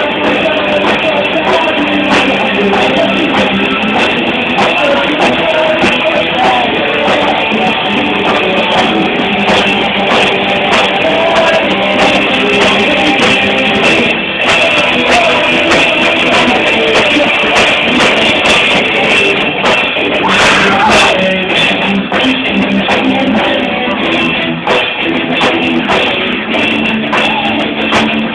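Live rock band playing loud, with electric guitar, drum kit and singing, heard through a distorted audience recording.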